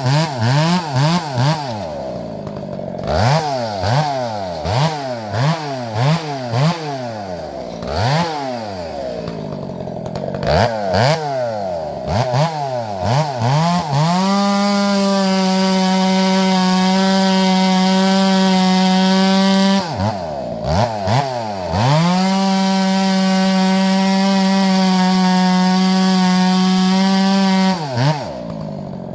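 Chainsaw fitted with a square-ground chain bucking firewood. The throttle is blipped up and down repeatedly for about the first half, then held wide open for two long steady cuts of about six seconds each, dropping back and blipping briefly between them.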